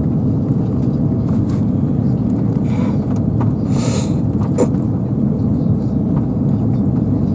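Steady low rumble of engine and airflow noise inside the cabin of an Airbus A330-300 on approach, recorded loud and distorted. Two brief hissing sounds come about three and four seconds in, followed by a sharp click.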